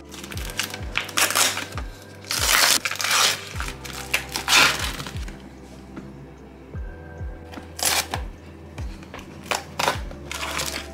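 Background music with a steady beat, over the crinkling and crackling of food packaging being handled: a clear plastic tray of raw chicken wings and a cardboard seasoning box being opened. The packaging noise is loudest in a few bursts a couple of seconds in, with shorter crackles near the end.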